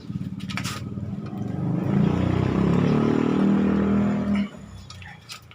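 A motor engine running and revving, loudest and rising in pitch from about two seconds in, then falling away sharply near the end.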